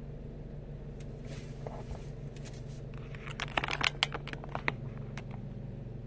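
Car engine idling, a steady low hum heard from inside the cabin, with a cluster of irregular clicks and ticks about three seconds in.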